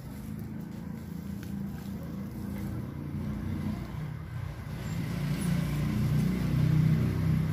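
A low engine hum that grows steadily louder.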